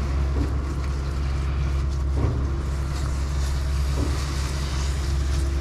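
Heavy equipment engine running steadily with a low drone, a faint steady tone above it and a couple of light knocks.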